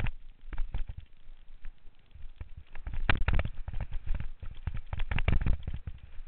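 Downhill mountain bike clattering over a rough dirt trail at speed: a dense run of sharp knocks and rattles with a low rumble, heaviest from about halfway through.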